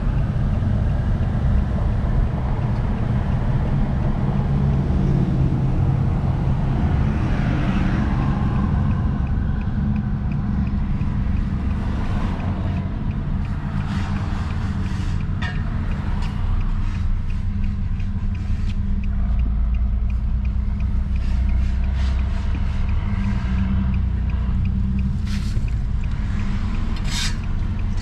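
Car interior while driving: steady low rumble of engine and road noise, with scattered sharp clicks or knocks in the second half.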